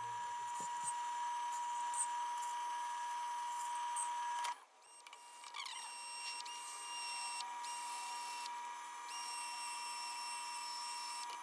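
Wood lathe running with a steady high whine while the spinning bowl is sanded. After a cut about halfway through, a cordless drill with a sanding disc is run against the turning bowl, its high motor whine stopping and restarting a few times.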